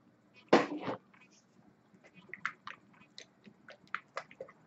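A new plastic e-liquid bottle being unwrapped by hand: a sharp rustle of plastic packaging about half a second in, then a run of small crackles and clicks as the wrapping is picked off.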